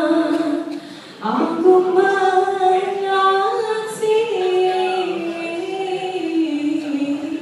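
Female voices singing an unaccompanied melody in long held notes, with a short break about a second in before the next phrase.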